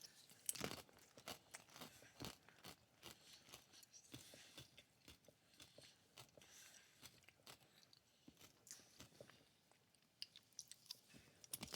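Faint crunching and chewing of a fried cream cheese rangoon, its crispy wonton wrapper cracking in irregular small crackles.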